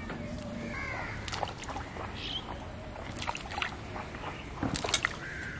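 Small splashes and sloshing of water in a shallow ditch, with scattered clicks and knocks, the loudest about five seconds in.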